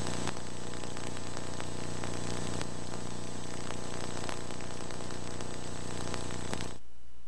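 Hiss and steady hum of old VHS tape playback, with scattered crackles. The hiss cuts off sharply near the end, leaving only a faint low hum.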